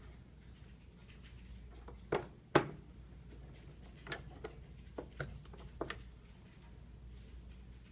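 Scattered sharp clicks and taps of a screwdriver and screws against a register's plastic housing while the screws are put back in, the loudest a knock about two and a half seconds in, over a faint steady hum.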